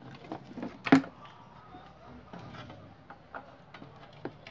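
Scattered light clicks and knocks, with one louder sharp knock about a second in.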